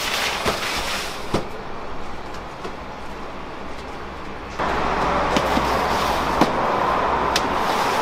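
Metal baking trays knocking and scraping as they are slid onto the steel shelf of a commercial deck oven, a few sharp knocks over a steady background hum. About halfway through the steady noise jumps suddenly louder and stays.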